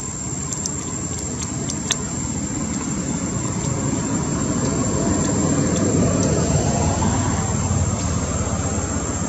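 Low rumble of a passing vehicle, building to its loudest about six seconds in and then easing off, over a steady high-pitched tone.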